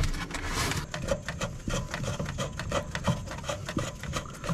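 Hands handling the copper gas line and its fittings against wood and insulation: a run of irregular rubbing and scraping with small clicks, a louder rasp in the first second.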